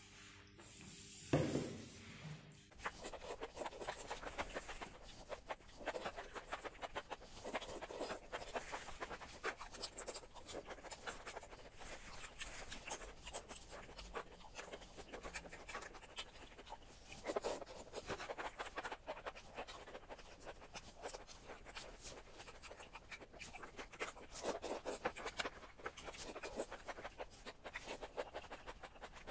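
Close-miked eating of spicy noodles and enoki mushrooms: wet slurping and chewing, a dense crackle of mouth clicks with louder slurps now and then.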